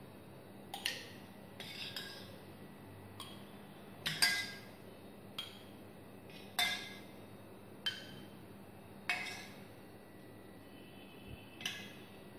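Steel spoon clinking against a stainless steel pot as set yogurt is scooped out: about nine short, ringing clinks, roughly one a second.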